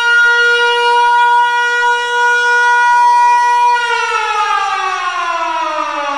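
A loud, steady, siren-like tone that slowly falls in pitch from about four seconds in, like a siren winding down.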